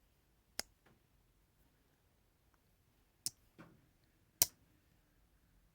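Handmade slipjoint pocket knife's blade snapping open and shut under its backspring: a few sharp clicks, the loudest near the end, from a snappy medium pull.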